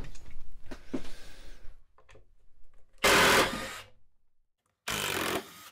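Handling noise and small knocks as the upturned wooden chair is shifted on its padding, then a cordless drill-driver runs in two short bursts, about a second and then about half a second, backing out the screws that hold the seat to the chair frame.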